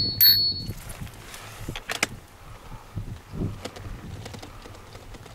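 Handlebar bicycle bell rung twice in quick succession, a clear high ring that dies away within about a second. Faint scattered clicks and rattles follow.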